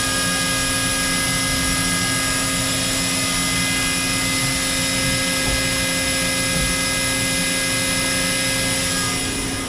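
Makino A51 CNC horizontal machining center running under power: a steady mechanical hum with several held whining tones over a hiss. Just before the end the sound drops slightly and the highest hiss thins out.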